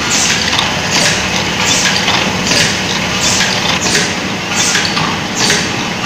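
Automatic aluminium tube filling and crimping machine running: a steady low hum with a short hissing burst repeating about every 0.8 s as the machine cycles.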